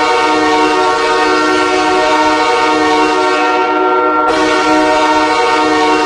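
Hockey arena goal horn sounding one long, steady multi-tone blast, which starts afresh about four seconds in.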